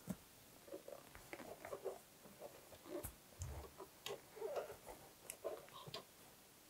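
Faint, scattered clicks and rustles of a crochet hook working yarn, stitch by stitch, with a soft low bump about halfway through.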